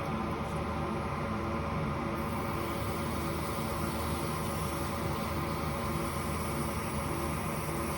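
Lathe running steadily with a motor hum while 500-grit sandpaper is held against a spinning bicycle hub bearing cone, polishing out scratches left by the grinding wheel.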